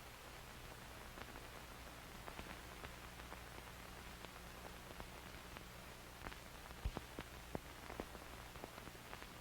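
Faint static hiss over a steady low hum, with scattered crackles and pops that come more often and louder from about six seconds in.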